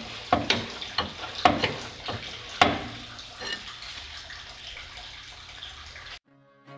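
Manual hydraulic hand pump in a choke control panel being stroked to charge the accumulator: a sharp metallic click about once a second for the first three seconds, then a faint steady noise that cuts off near the end.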